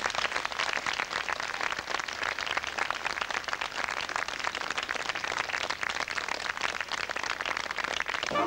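Audience applauding: dense, steady clapping with no music.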